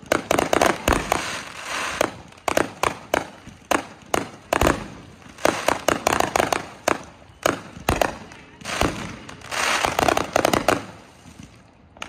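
Aerial fireworks going off in quick succession: many sharp bangs, a few deeper booms, and stretches of crackling from crackle-effect shells.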